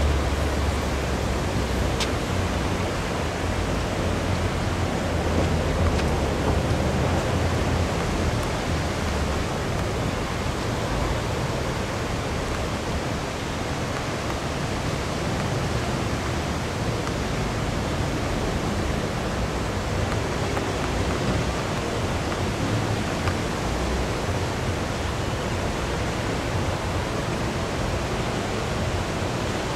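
Steady rushing noise of fast-moving floodwater on the swollen Delaware River. Irregular low rumbles come and go over the first several seconds.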